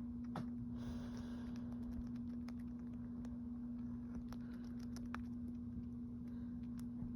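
Scattered light taps and clicks at an uneven pace over a steady low hum, with a short rush of noise about a second in.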